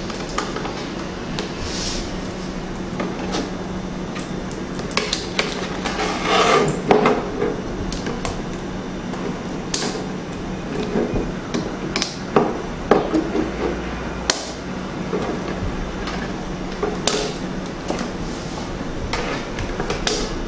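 Irregular clicks and taps of plastic clips and acrylic panels being handled and snapped together while a light box is assembled, over a steady low hum.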